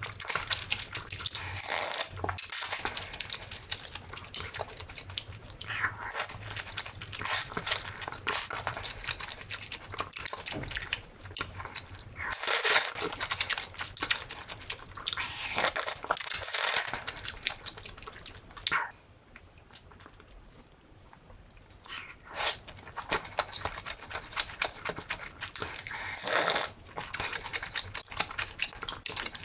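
Close-miked eating sounds: slurping thick noodles and broth and wet chewing and lip smacking, with a few louder slurps, one about two-thirds of the way through and more near the end.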